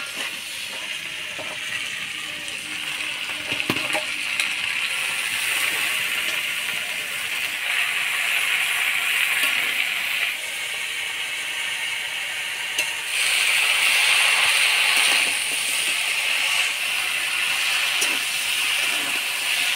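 Vegetables sizzling in hot oil in a kadai as they are stirred, with a few short clinks against the pan. The sizzle swells louder for a couple of seconds past the middle.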